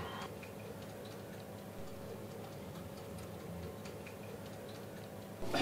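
Quiet low, steady room hum with faint scattered ticks; a louder sound cuts in right at the end.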